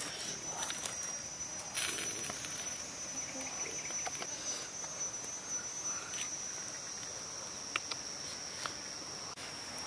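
Steady, high-pitched drone of insects calling without a break, with a few light clicks scattered over it.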